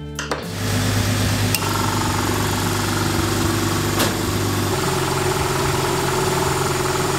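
Jeep engine idling steadily, with its A/C compressor, converted to an onboard air pump, running. The compressor is not building pressure. Two sharp clicks come about two and a half seconds apart, and the engine note shifts a little after the second click.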